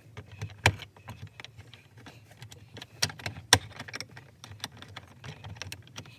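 Small plastic clicks and scrapes as a trim tool pries plastic pieces out of a 2007 Honda Odyssey's overhead console, with a few sharper snaps, one near the start and two a little past the middle.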